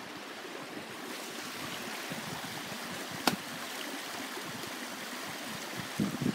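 Shallow creek water running steadily over stones and logs, with a single sharp click about halfway through.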